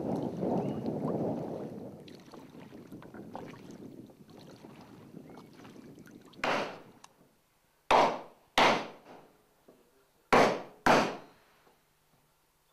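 Water noise around a rowboat towing floating logs, loud at first and fading over the first few seconds. From about six and a half seconds in come five sharp blows on a caulking iron, in uneven pairs, each ringing briefly, as cord caulking is driven into the seam of a wooden boat's planking.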